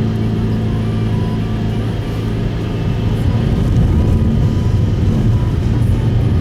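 Steady low road and engine rumble inside the cabin of a Subaru Impreza Sport (GP7) driving on a snowy road, growing slightly louder about halfway through.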